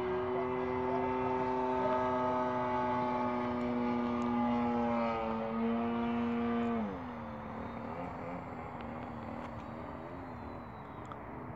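Radio-controlled model aeroplane flying overhead, its motor and propeller giving a steady high buzz. About seven seconds in the pitch drops sharply and the sound gets quieter, then it wavers low and starts to climb again near the end.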